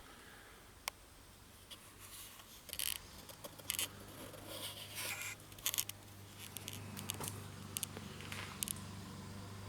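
Scattered light clicks, scrapes and rattles of car interior parts being handled and pulled loose, over a low steady hum that grows after a few seconds.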